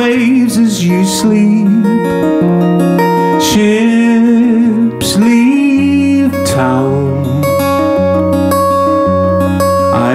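Acoustic guitar strummed live while a man sings a slow folk song at the microphone, the chords shifting to lower bass notes about six seconds in.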